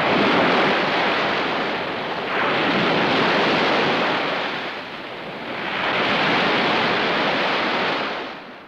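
Heavy ocean waves crashing and washing in, three surges a few seconds apart, each a rush of surf that swells and then ebbs. The sound fades out near the end.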